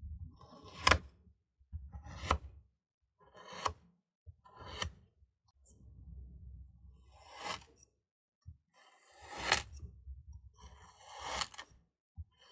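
Crunchy kinetic sand being cut: four short, crisp crunches as a serrated metal blade presses down through it, then, from about halfway, three longer grinding crunches that swell to a sharp end as a round metal cutter is pushed down into the sand.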